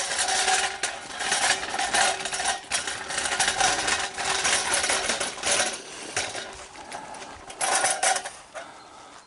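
Continuous rattling and scraping with light metallic clicks, as of equipment being handled and moved; it fades out near the end.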